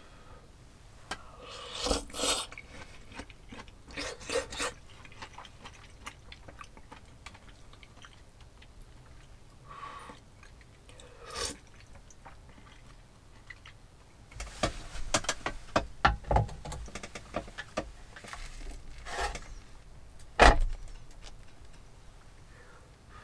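A person eating bamboo-shoot soup from a small stainless pot: slurps, chewing, and chopsticks clicking and scraping against the pot, with a dense run of clicks past the middle. Near the end a single sharp knock, the loudest sound, as the pot is set down on the wooden table.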